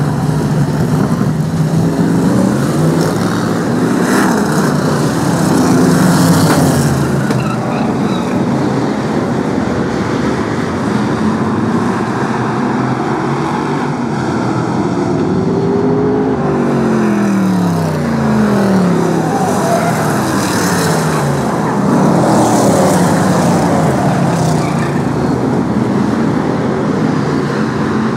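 A pack of BriSCA F1 stock cars' V8 racing engines running hard around an oval track, several at once. Their pitch keeps rising and falling as cars accelerate, lift off and pass, with one long falling sweep about two-thirds of the way through.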